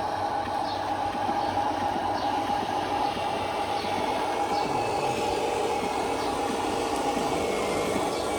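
Electric motor and plastic gearbox of an RC construction model running with a steady whirr.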